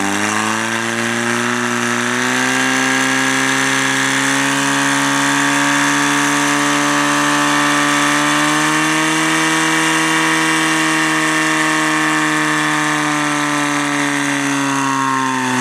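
Portable fire pump's petrol engine running hard as it pumps water through the attack hoses to the nozzles. Its pitch climbs over the first couple of seconds, then holds steady, dipping slightly near the end.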